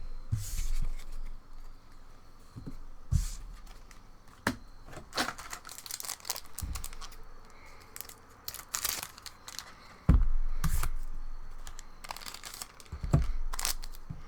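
Foil trading-card booster pack being torn open and its wrapper crinkled, with a few soft thumps about 3, 10 and 13 seconds in.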